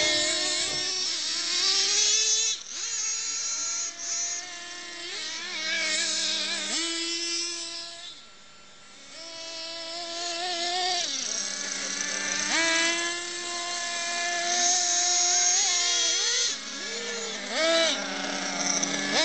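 Radio-controlled model cars' motors revving, their pitch rising and falling again and again as the cars speed up and slow down over the grass. The sound dips briefly about eight seconds in.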